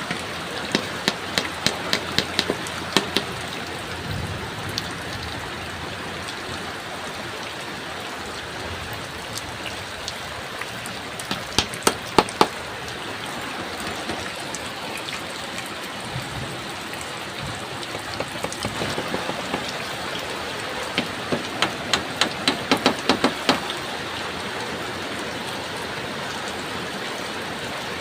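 Steady heavy rain, with several runs of quick, evenly spaced knocks, about three to five a second. The runs come near the start, midway, and twice more later on, the loudest midway.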